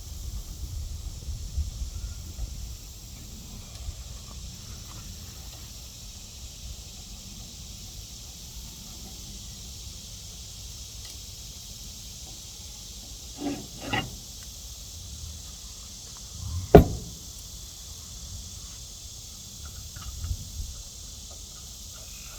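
Hand tools and metal engine parts knocking and clinking during a small-engine teardown: a few short knocks, the sharpest about 17 seconds in, over a faint steady high hiss.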